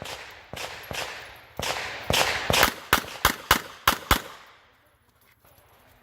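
A competition revolver firing about ten quick shots in irregular pairs and strings over the first four seconds, each with a short echo, then stopping.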